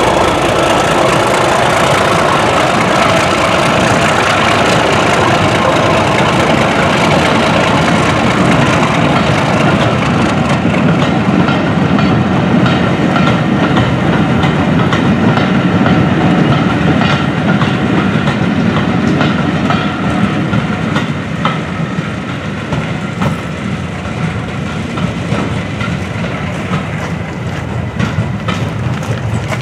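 Diesel-hauled train running on the line: a loud, steady rumble with wheels clicking over rail joints, the clicks plainest in the second half as the sound eases a little.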